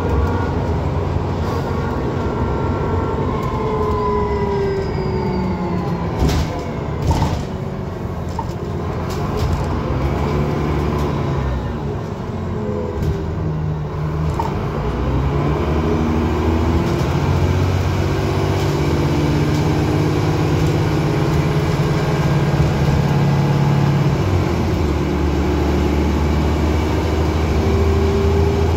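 Transbus Trident double-decker bus heard from inside the saloon while under way: diesel engine and driveline running, their whine rising and falling as the bus speeds up and slows. A few sharp knocks and rattles come about six to seven seconds in, and the engine drone grows stronger in the second half.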